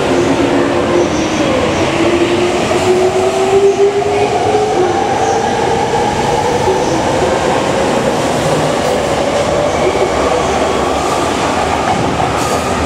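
Tokyo Metro 05 series electric train pulling out of the station: the whine of its traction motors rises steadily in pitch as it accelerates, over the running noise of the wheels on the rails.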